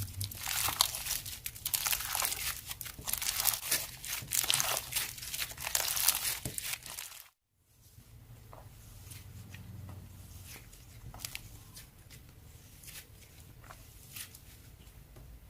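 Plastic packaging being crinkled and torn open, a dense run of crackling. About seven seconds in the sound cuts out abruptly, and after that only a few scattered quiet clicks and rustles are left.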